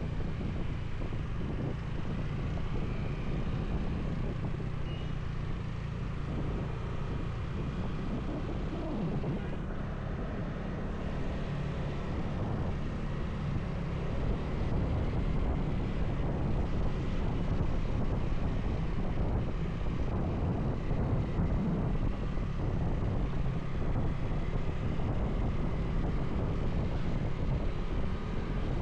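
Motorcycle running steadily at road speed, with wind noise on the microphone.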